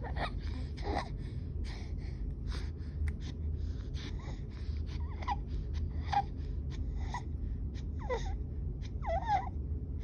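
A baby's harsh, noisy in-breaths (stridor) about once a second, with a few short whimpering cries among them. Stridor on breathing in is the sign that the baby is having trouble breathing.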